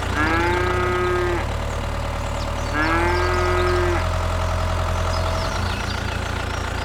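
Two long pitched calls, each a little over a second, that slide briefly upward and then hold steady, over a steady low motor hum.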